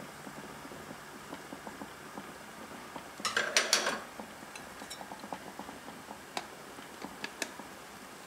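Pot of black beans simmering, with a constant light crackle of small bubbles. About three seconds in comes a short cluster of metal clinks from a utensil against the pot, then a few single clinks later.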